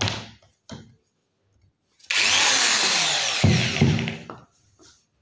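Corded electric hand drill running in two brief bursts, then in a longer run of about two seconds with a whine that wavers up and down, its bit working on a badminton racket's frame.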